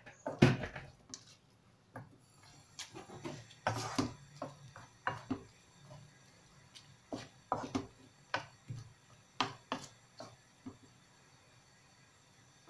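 Wooden spoon stirring mince and vegetables in a nonstick wok, giving irregular knocks and scrapes against the pan; the loudest knock comes about half a second in.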